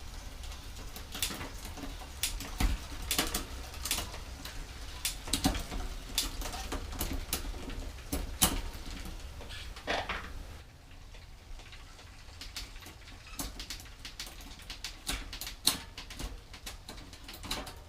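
Irregular clicks and small metallic knocks of tools and parts being handled while a mountain bike's rear derailleur and shift cable are fastened and adjusted.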